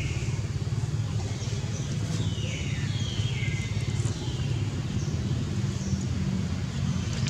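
A steady low rumble like a vehicle engine running. A few faint, high, falling squeals come about two to four seconds in.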